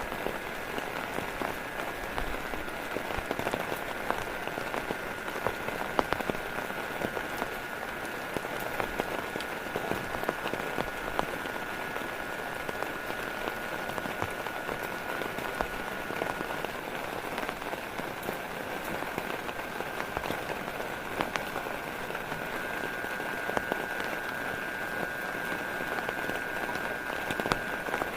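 Steady rain falling, with many individual drops pattering and ticking, over a faint steady high-pitched tone.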